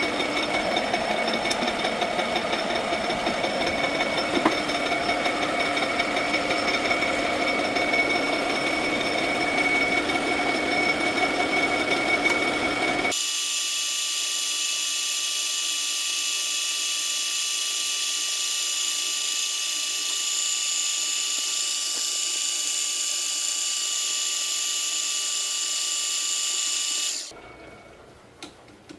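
Power tool running steadily with a dense, noisy sound. About 13 seconds in it changes abruptly to a thinner, high-pitched whine with no low end, which drops away shortly before the end.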